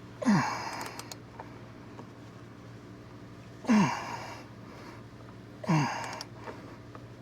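A man grunting with effort, three times, each grunt a short breathy groan that falls in pitch, as he strains to tighten bolts with a wrench. A few faint clicks fall between the grunts.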